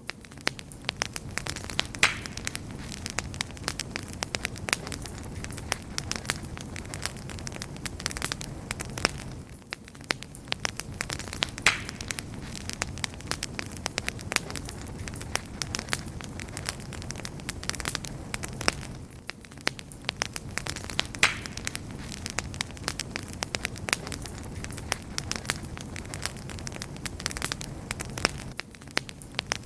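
Wood fire burning steadily with a soft rumble and frequent sharp crackles and pops, the pattern easing briefly about every ten seconds.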